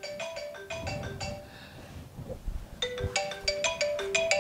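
Phone ringtone: a short, bright melody of quick pitched notes, played twice with a pause of about a second and a half between.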